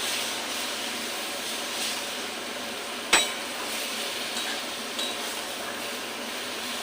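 Vegetables and dried fish frying in a pan with a steady sizzle, while a spatula stirs them; it knocks sharply against the pan once about three seconds in, with a few lighter clinks.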